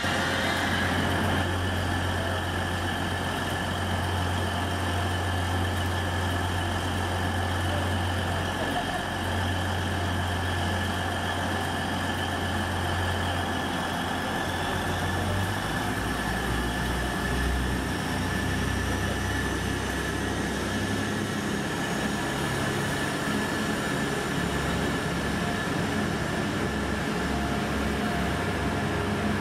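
Class 180 diesel multiple unit standing at a platform with its Cummins diesel engines idling: a steady low hum with a higher whine over it. About halfway through, the low hum drops to a deeper, more uneven note.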